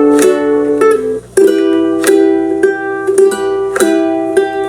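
Ukulele strummed by hand in a steady rhythmic pattern, several strums a second, with a short break and a change of chord a little over a second in.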